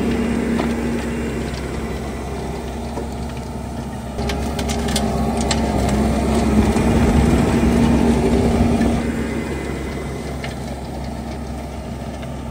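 Skid-steer loader running with its Coneteks 2.13M hydraulic soil-milling attachment working the ground: a steady machine hum that grows louder about four seconds in and eases off again after about nine seconds, with a cluster of sharp ticks and clicks around the louder stretch.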